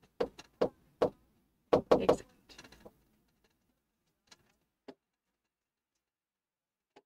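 A quick series of sharp taps and knocks on a large interactive touchscreen display, about six in the first three seconds, then a few fainter single taps.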